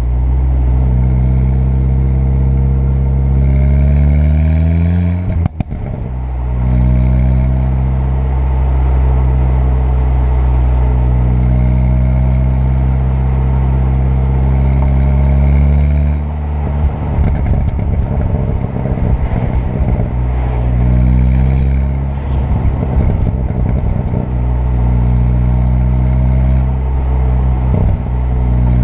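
2.0 TFSI turbocharged four-cylinder car engine pulling up through the revs in gear, with a short break for a gear change about five seconds in, then climbing again and holding steady. From about halfway, lifting off the throttle brings stretches of rapid crackling pops in the exhaust on the overrun, between steadier pulls.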